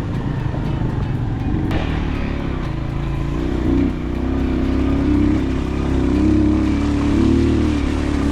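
Motorcycle engine running hard on a rough dirt road, its pitch rising and falling with the throttle, over a steady low rumble.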